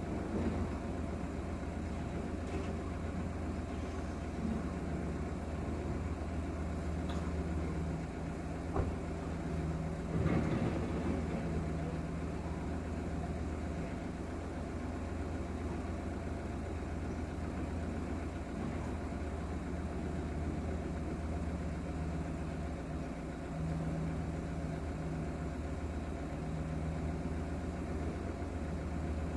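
An engine idling steadily, a low even hum heard from inside a vehicle cabin, with a couple of brief knocks about nine and ten seconds in.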